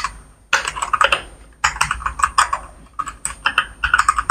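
Typing on a Redragon K643 mechanical keyboard fitted with 3-pin linear switches: rapid runs of keystroke clacks in three bursts of about a second each, separated by short pauses.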